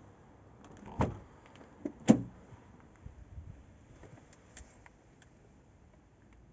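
Nissan Qashqai's car door being handled: a sharp clunk about a second in, then a louder, heavier thud about a second later, with faint clicks after.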